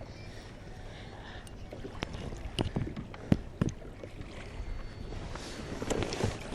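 Wind and water noise around a kayak on the sea, with a few sharp knocks and clicks, the loudest about three seconds in.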